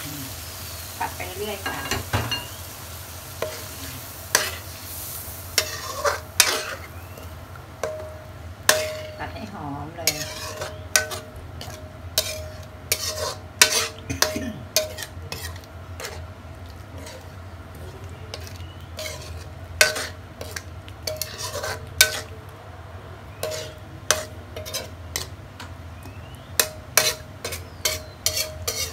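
Red curry paste and coconut cream frying in a pan, stirred with a utensil that clacks and scrapes against the pan many times at an irregular pace, over a faint sizzle and a steady low hum.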